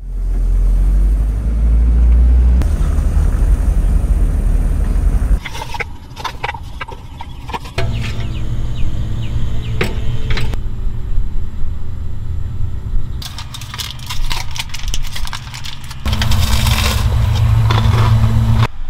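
Engine and road noise inside a Toyota Land Cruiser's cab on the move. After a cut about five seconds in come scattered light clicks and clinks of coffee gear being handled over a steady low hum, then a loud hiss near the end.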